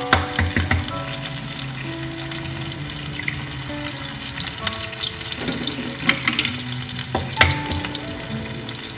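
Onion, garlic and tomato sizzling in butter in a frying pan. An egg is knocked sharply on the pan a few times near the start, with two more knocks later. Soft background music with held notes plays under it.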